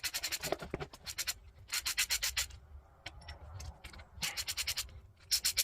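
Ratchet wrench clicking in rapid runs, four bursts with short pauses between, as long water pump bolts are backed out of the engine's front cover.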